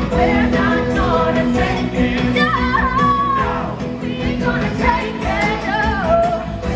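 Live rock band playing a song with electric guitars, a sung melody carried over the top by the singers.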